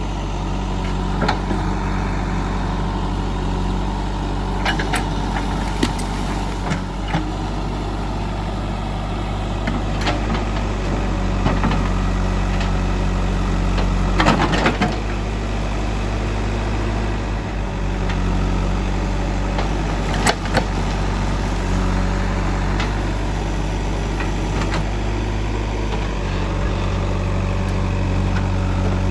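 JCB 3DX backhoe loader's diesel engine running steadily, with several short sharp knocks, the loudest about fourteen seconds in.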